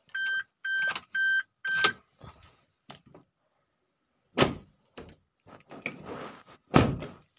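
A car's electronic warning beeper sounding short, even beeps about two a second, which stop about two seconds in. Then two heavy door thuds, about two and a half seconds apart.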